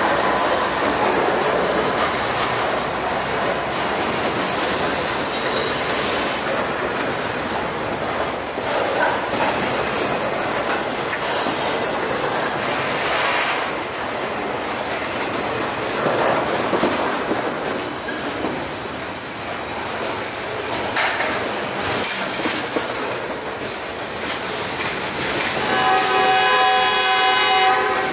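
Freight train rolling past close by, autorack cars and then tank cars: steel wheels clattering over the rail joints with a steady rumble and rush. Near the end a train horn sounds for about two and a half seconds.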